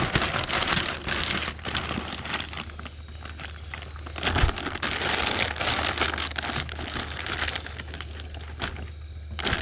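Plastic weigh-in bag crinkling as a bag of bass and water is handled and set into a plastic weigh basket, with a soft thud about halfway through as it comes to rest.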